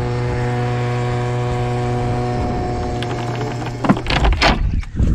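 A small boat motor running with a steady hum, cutting out about four seconds in, followed by a few loud thumps and rustles.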